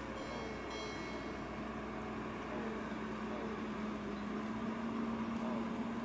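Amphibious pontoon-track excavator's diesel engine running steadily, a low hum that grows a little louder in the second half as the machine works its boom.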